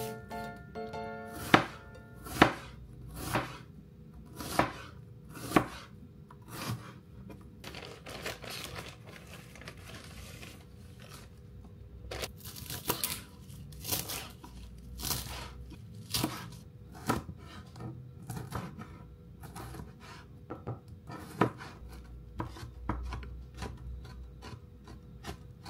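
Knife chopping food on a cutting board in slow, separate strokes, about one a second, loudest over the first few seconds and lighter and more scattered towards the end.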